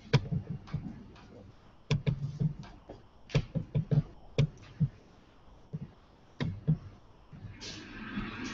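Irregular knocks and thumps in short clusters, then music starting from the room's speakers near the end.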